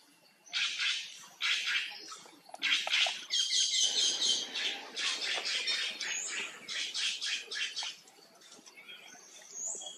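Monkey calls: a run of harsh squawks repeated in quick succession, stopping about eight seconds in.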